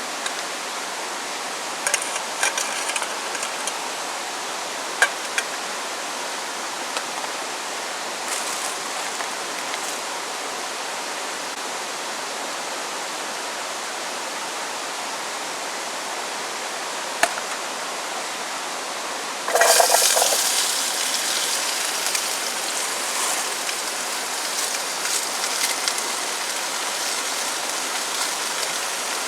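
Steady hiss with a few light clinks of utensils. About twenty seconds in, a loud sizzle bursts up as food goes into a hot pan, and the frying goes on strongly.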